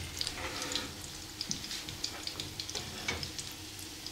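Breadcrumbed breast of lamb frying in rendered meat fat in a pan on the stove: a steady sizzle with scattered small crackles.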